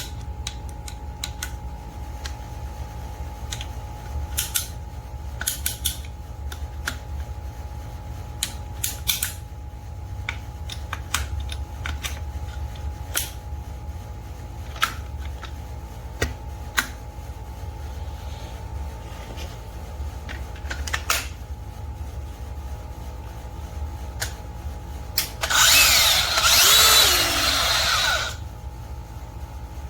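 Scattered clicks and knocks over a steady low hum, then a power tool runs loudly for about three seconds near the end, with a harsh grinding sound.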